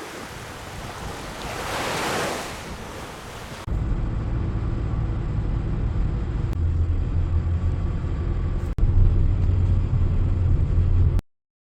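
Sea surf washing on the beach, one wave swelling about two seconds in. After a sudden cut, a louder, duller low rumble with a steady low hum takes over and then stops abruptly.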